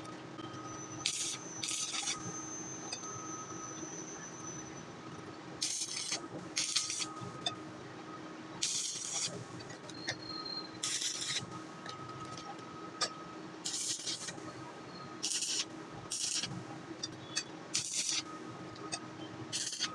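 Short rasping scrubbing or scraping strokes, about a dozen, spaced irregularly, over a faint steady hum.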